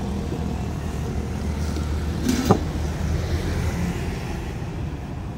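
Steady low rumble of a motor vehicle's engine running. About two and a half seconds in, one sharp clink of a drinking glass.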